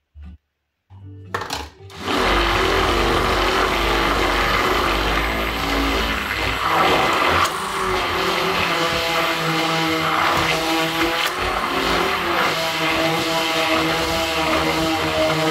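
Hand-held immersion blender switched on about two seconds in and running steadily, its motor whirring as it blends melted butter and eggs in a plastic tub.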